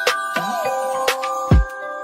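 Upbeat background music: bell-like mallet melody over a steady drum beat.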